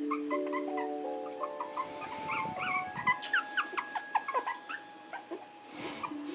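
Young puppies, about 25 days old, whimpering and squeaking in a run of short, high cries that bend up and down, thickest in the middle. Soft background music with held notes runs under it.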